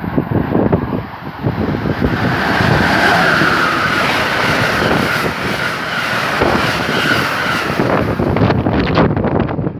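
An electric passenger train passing through the station at speed: a steady rushing roar that swells about a second and a half in and dies away near the end, with gusts of wind buffeting the microphone around it.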